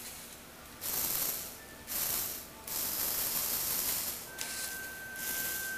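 Electric motor and plastic gears of a Lego Technic tricycle whirring as it drives, in spurts of about a second with short breaks. A steady thin high whine joins about four seconds in.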